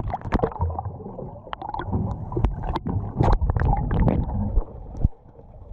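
A run of irregular knocks and clicks over a low rumble, with a louder knock about five seconds in.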